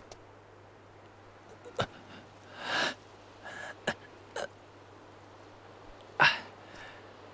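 A man's short pained grunts and sharp breaths in a few separate bursts. The loudest is a sharp grunt about six seconds in.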